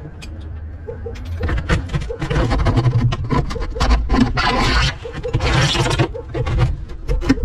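A blade scraping and tapping on a glass aquarium as its plastic trim and old silicone are worked off: sharp clicks among rasping strokes of under a second, the longest about two, four and five and a half seconds in, over a low rumble.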